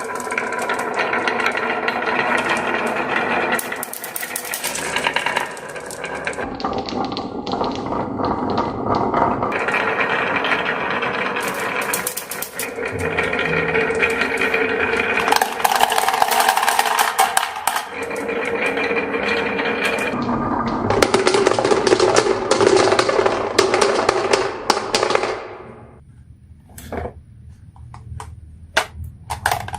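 Marbles rolling and clattering down a wooden marble run, many at once, thinning out near the end to a few separate clicks.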